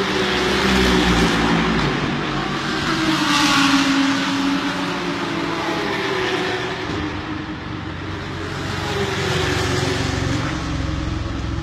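Racing car engines at high revs as cars pass one after another, their pitch rising and falling, loudest about three and a half seconds in and swelling again near the end.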